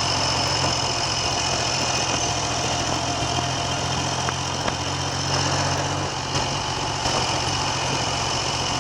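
Triumph Trident three-cylinder motorcycle engine running steadily at low revs, its note shifting slightly about six seconds in.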